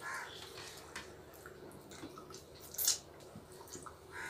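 Wet eating sounds: chewing and lip smacks while rice and egg curry are eaten by hand, with small clicks throughout and one short, sharp smack nearly three seconds in.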